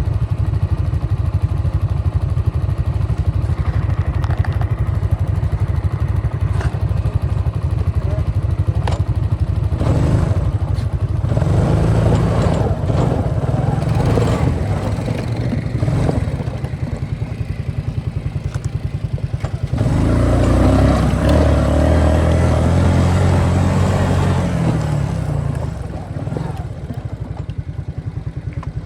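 A motor vehicle's engine running with a fast, even pulse and revved up several times: briefly about ten seconds in, again for a few seconds after that, and longest and loudest about twenty seconds in.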